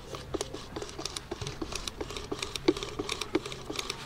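Irregular light clicks and rattles, several a second, of metal parts and hand tools being handled while the electric cooling fan is refitted.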